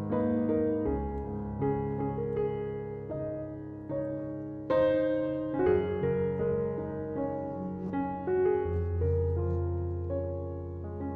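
Background piano music: a slow run of held notes and chords.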